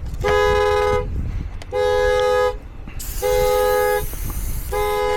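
2005 Honda Accord's dual-tone horn blaring in four evenly paced blasts, about one every second and a half: the car's anti-theft alarm set off by the door being unlocked without a key.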